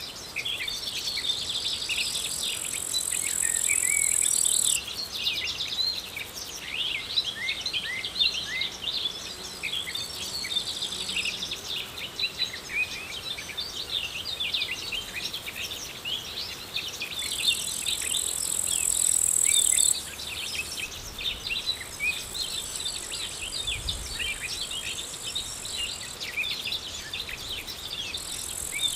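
Outdoor chorus of many small birds chirping and singing over one another, with an insect's high steady buzz that swells for a few seconds at a time, about two seconds in, again around seventeen seconds, and near the end.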